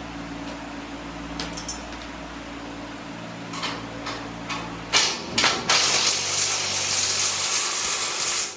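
Metal tools knocking and clinking against suspension parts over a steady background hum, then a loud even hiss from about five seconds in that cuts off abruptly.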